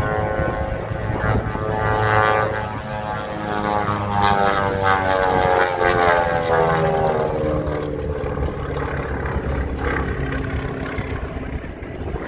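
Propeller airplane's engine running loud as it flies past, its pitch sliding down in the middle as it goes by.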